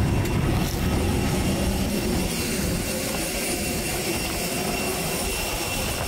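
Steady jet aircraft noise: a low rumble with several steady high-pitched whining tones over it, and wind on the microphone.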